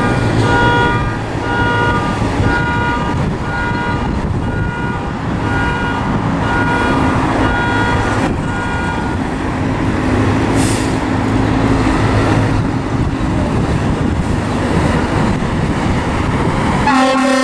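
Fire engine's diesel engine running in the station bay, under a repeating electronic beep that pulses about twice a second for the first half. Just before the end an air horn comes on loud and steady.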